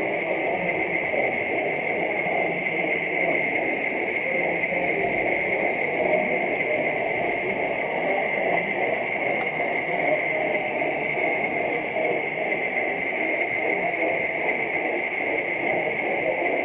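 Steady running noise of a gauge 0 model train carrying the camera along the layout: a continuous whirr with a constant high whine above it.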